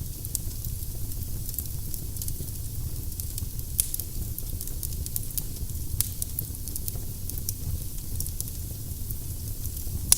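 Wood burning in a fireplace: a steady low rumble of the flames with scattered sharp crackles and pops, the loudest pops coming about four and six seconds in.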